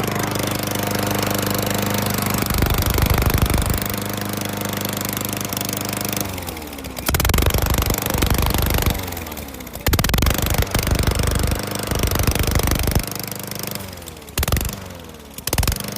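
Straight-piped single-cylinder lawn mower engine, muffler deleted, running flat out in a torture test. About six seconds in its revs fall and it runs rough and uneven, with loud sputtering spells that come and go and thin out near the end.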